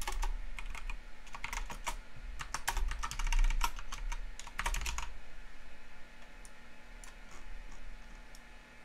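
Typing on a computer keyboard: a quick run of keystrokes for about five seconds, then a few scattered, fainter clicks.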